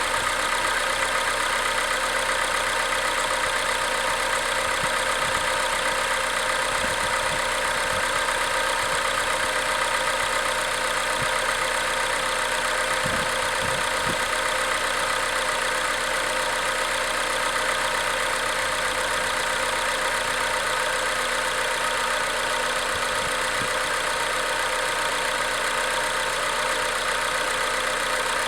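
Acura RSX Type S's 2.0-litre four-cylinder engine idling steadily as it warms up.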